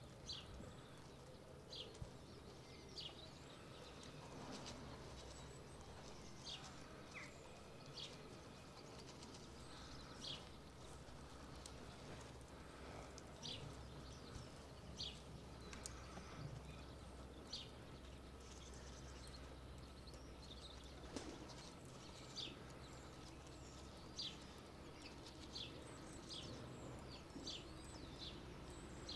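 Faint outdoor ambience with a small bird giving short, high chirps about every second or two, over a low steady background hum.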